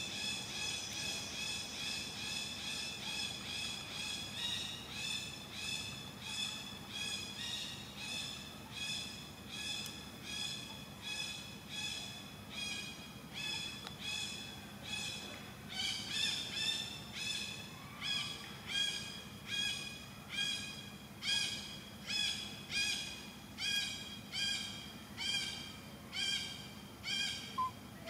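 A forest animal's call, repeated in a steady rhythm of about one and a half pulses a second, each pulse high and ringing; it grows louder and more sharply pulsed about halfway through.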